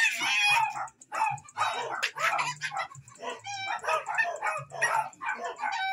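A dog barking and yelping in short, quick cries, about three a second, a brief pause about a second in. It is the dog being castrated, crying out during the procedure.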